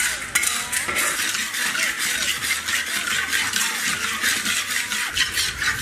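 Rock sugar sizzling and crackling in hot oil in a large iron wok, with a spatula stirring and scraping against the pan: the sugar is being fried into caramel (tangse) for a braise.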